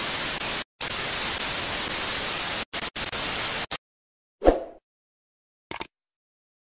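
Loud white-noise static hiss that cuts out abruptly a few times and stops a little under four seconds in, followed by a single short thump that quickly fades and a brief double click near the end.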